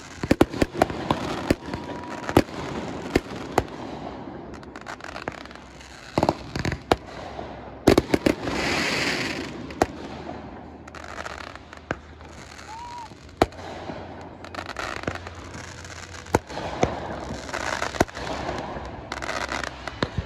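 Aerial fireworks bursting, with many sharp bangs at irregular intervals throughout and a couple of seconds of hissing crackle about eight seconds in.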